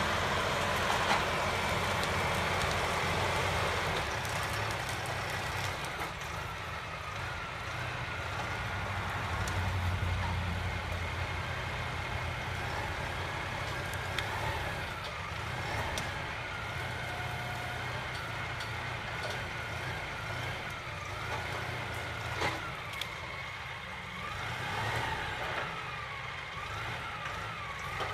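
Compact utility tractor's diesel engine running steadily under load while it works brush, with a higher whine that rises and falls as the machine works. A few sharp knocks break through, one loud one about two-thirds of the way through.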